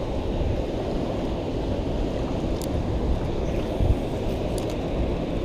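Steady wind rumbling on the microphone over the wash of waves against the jetty rocks.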